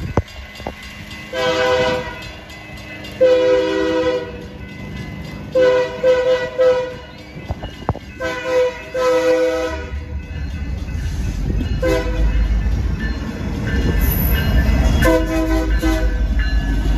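BNSF diesel freight locomotive sounding its horn in a series of long blasts for the grade crossing, with a last shorter pair near the end. From about halfway through, the low rumble of the locomotives' diesel engines and wheels grows louder as they reach the crossing.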